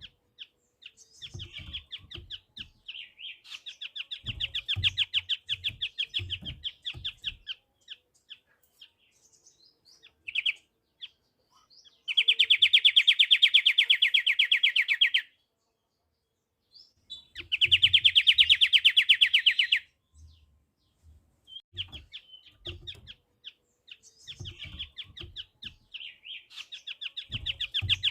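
Pied triller (kapasan kemiri) singing: runs of rapid trilled notes, with two loud, dense trills of about three seconds each in the middle.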